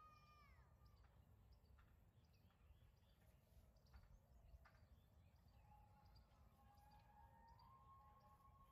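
Near silence: faint outdoor ambience, with a faint call that fades out about a second in and faint long, steady tones from about six seconds in.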